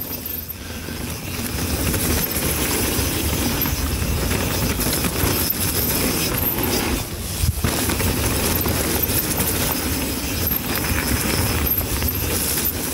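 Mountain bike ridden down a soft, muddy trail: a steady rush of wind and rolling noise on the rider's action camera, with the tyres and bike rattling over the dirt.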